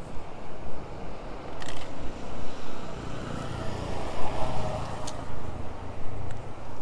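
A motor vehicle's engine passing on the road, building to its loudest a little past halfway and then fading.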